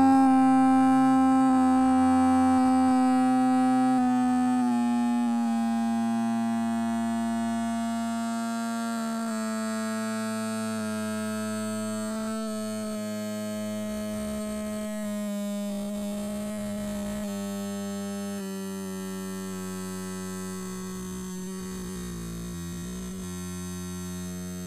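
A long electronic synthesizer tone with several overtones, sliding slowly down in pitch and gradually getting quieter.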